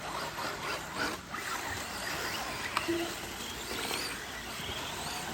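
Electric RC cars running on a dirt track: faint short motor whines over a steady outdoor hiss, with a couple of sharp knocks about a second in and near the middle.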